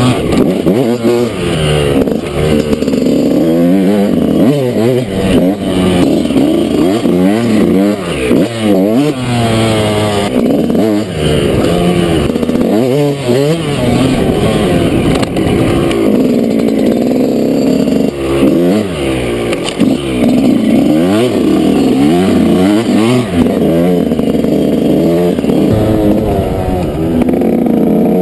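Yamaha YZ125's single-cylinder two-stroke engine under hard riding, its pitch climbing and dropping again and again as the throttle is worked and gears are shifted.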